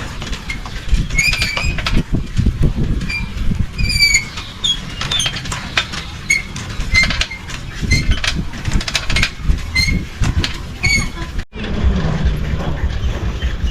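Bicycle rattling and squeaking as it is ridden along a road, with many short high squeaks and clattering over a low rumble.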